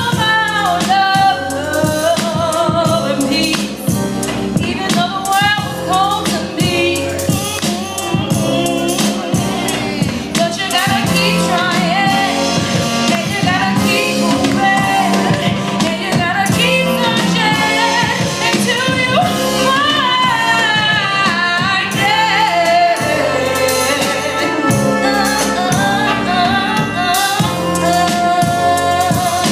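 A woman singing a soulful melody live into a microphone, with wavering, gliding runs, over an instrumental accompaniment with a steady beat.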